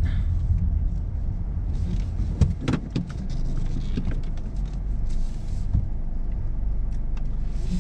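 Inside a 2019 Honda Civic CVT creeping at low speed while being parked: a steady low engine and road hum, with a few sharp clicks and knocks about two and a half seconds in.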